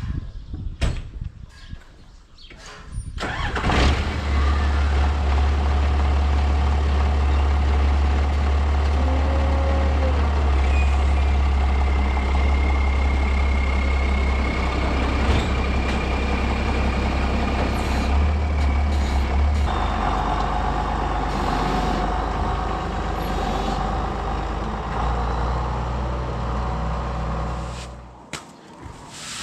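John Deere 7510 tractor's diesel engine starting about three seconds in and running steadily at idle, with a slight change in its note about two-thirds of the way through, then shutting off near the end.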